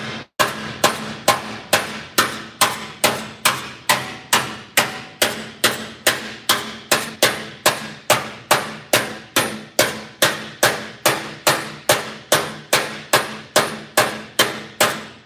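A body spoon (slapper) strikes a steel aftermarket Volkswagen Beetle fender in a steady rhythm, a little over two blows a second, and the sheet metal rings briefly after each blow. The blows are hit-and-drag strokes that roll out a low spot in the panel.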